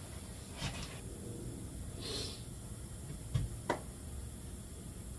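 Light handling noise: a few faint clicks and knocks, two of them close together a little after three seconds in, and a brief soft hiss about two seconds in.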